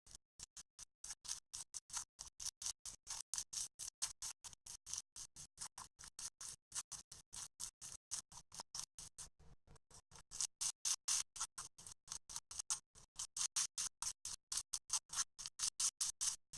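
Slime being squished and poked by hand: a fast, even train of short crackling clicks, about five a second, getting louder about ten seconds in.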